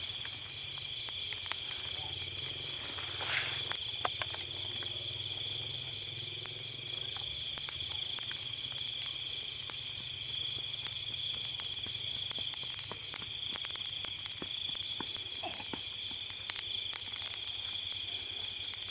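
A steady night chorus of crickets, a continuous high trill, with frequent small crackles and pops from a wood fire's glowing embers.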